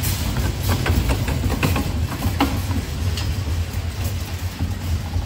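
Busy store background noise: a steady low rumble with scattered clicks and knocks.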